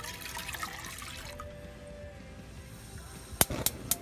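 Water pouring into a metal pot for about a second and a half, over background music. Near the end, about four sharp clicks in quick succession from a gas stove's igniter.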